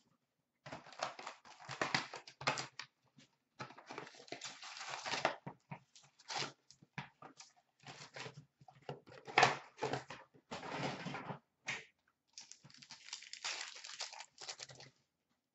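Plastic shrink wrap crinkling and tearing as a box of hockey cards is unwrapped and its card packs handled: irregular bursts of rustling with sharp crackles.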